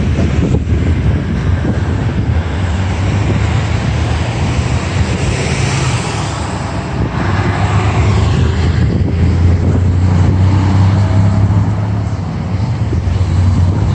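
Road traffic passing close by: cars and trucks drive past one after another, their tyre and engine noise swelling and fading. A heavier low rumble builds in the second half as a pickup towing a trailer goes by.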